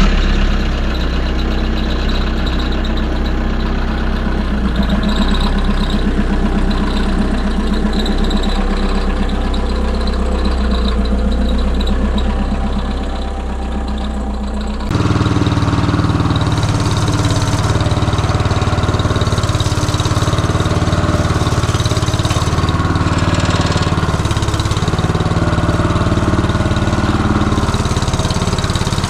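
Walk-behind tractor's single-cylinder petrol engine running steadily, with an abrupt shift to a different, lower-pitched running note about halfway through.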